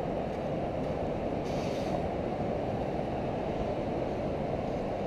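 Steady low rumble of wind buffeting the microphone on an open beach. About a second and a half in comes a brief sandy hiss, as a long-handled sand scoop digs into the beach sand.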